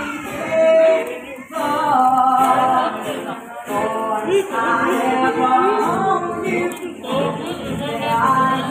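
A young man singing a song live, accompanying himself on an acoustic guitar; the voice is the loudest part.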